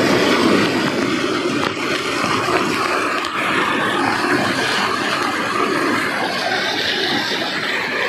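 Small waterfall pouring onto a person bathing under it, right at the microphone: a loud, steady rush and splatter of falling water.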